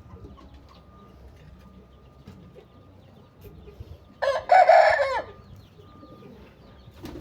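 Aseel rooster crowing once, a single crow of about a second, a little over four seconds in.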